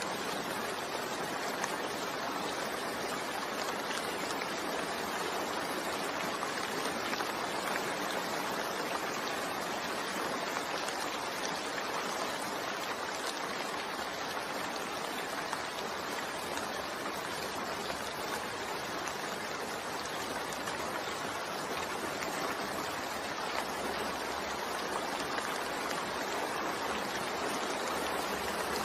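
Steady rain falling, an even hiss with a dense patter of drops and no single event standing out.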